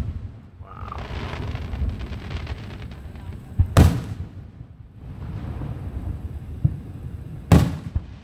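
Fireworks shells bursting: two loud bangs, one about halfway through and one near the end, each a quick double report. Between them is a lower rumble and crackle.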